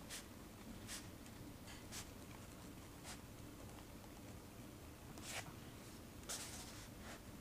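Faint handwriting on paper: short strokes at irregular intervals, about one a second, with a longer stroke near the end.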